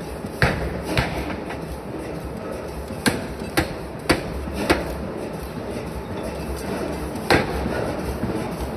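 Sharp metal clanks, about seven in all with a gap in the middle, from tongs and a steel punch striking a red-hot forging blank while its centre hole is punched, over the steady low hum of the forging press.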